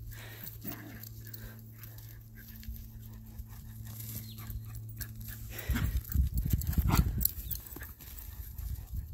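Two smooth fox terriers running zoomies over grass and a dirt track, their feet thudding and the grass rustling. About six seconds in there is a louder stretch of thumps and rustling.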